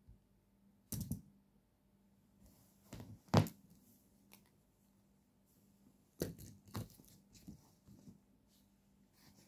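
A cat playing with a metal fountain pen: irregular clicks and taps of the pen, with rustles of paper and bedding, in short bunches about a second in, around three seconds, around six to seven seconds and near the end. A faint steady hum lies underneath.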